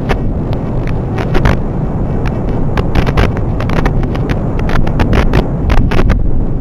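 Wind buffeting the microphone: a loud, steady rumble with many irregular sharp crackles and pops.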